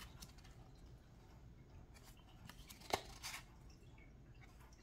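Faint handling of a tarot deck: cardstock cards sliding over one another as they are moved through the hands, with one sharper card snap about three seconds in.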